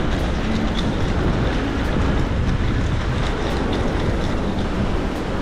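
Strong wind buffeting the microphone: a steady low rumble, with the wash of sea surf beneath it.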